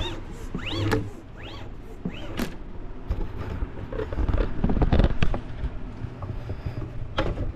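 Short squeaks rising and falling in pitch, about four of them less than a second apart, as the Anycubic Kobra 3's gantry is moved up the freshly greased Z-axis lead screw. After that come a couple of seconds of bumping and rustling handling noise, and a click near the end.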